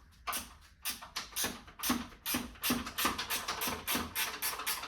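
Ratchet wrench with a 10 mm socket turning a nut, its pawl clicking in a quick rhythm of about five clicks a second.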